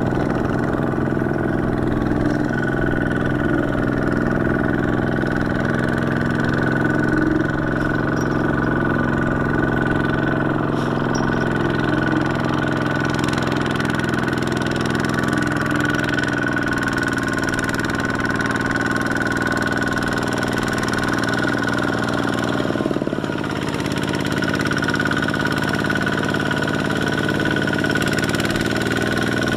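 Single-cylinder diesel engine of a Kubota walking tractor running steadily under load while pulling a loaded trailer through deep paddy mud, with a brief dip in level about three-quarters of the way through.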